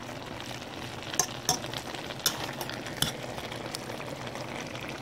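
A pot of turnip greens with pork neck bones simmering with a steady bubbling hiss. A metal fork stirs the greens and clicks sharply against the metal pot about four times.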